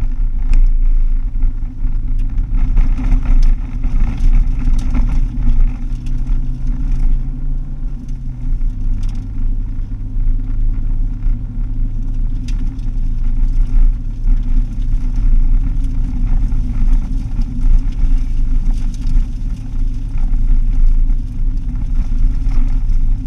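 Car engine and tyre noise on a dirt road, heard from inside the cabin: a loud, steady low drone whose engine note drops a step about eight seconds in, with scattered sharp ticks over it.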